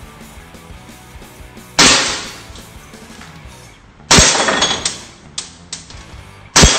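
WE Glock 18C gas blowback BB pistol fired semi-automatically: three sharp cracks about two and a half seconds apart, each trailing off over about half a second. A few fainter clicks follow the second shot.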